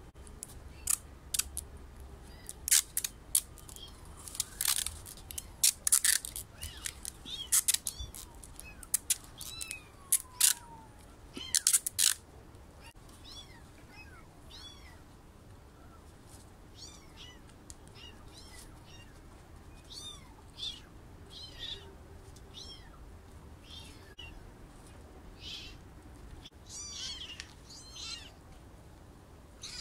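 Orphaned kittens mewing over and over in hungry cries: a run of loud, short, high-pitched cries through the first twelve seconds or so, then fainter, scattered mews.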